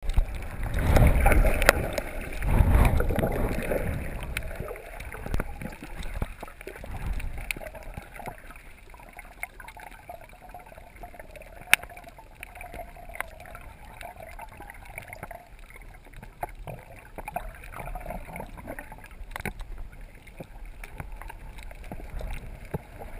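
Water rushing and sloshing against an underwater camera during a snorkel dive. It is loudest and rumbling in the first four seconds, then settles into a quieter, muffled underwater murmur with scattered sharp clicks.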